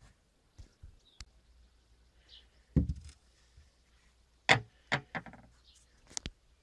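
Several sharp knocks and clunks of parts being handled in a car's boot around the removed tailgate gas strut, loudest about three seconds in and again past the middle, with a short cluster of smaller knocks after it. Birds chirp faintly in the background.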